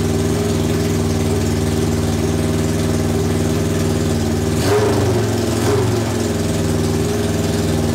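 Honda CB750 SOHC four-cylinder engine idling steadily while its carburettors are being synchronised, with two short surges in the engine sound a little past the middle.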